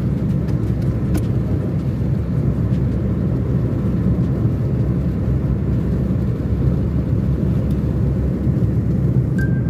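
Car driving at highway speed, heard from inside the cabin: a steady low rumble of engine and tyre noise.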